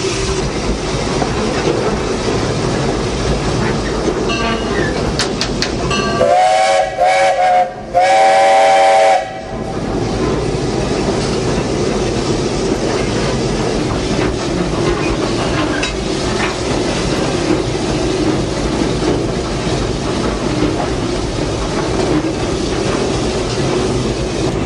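Vulcan steam locomotive running, heard from the cab: a steady rumble of the engine and wheels on the rails. About six seconds in, the steam whistle blows in a few blasts over some three seconds, the last one the longest and the loudest sound here.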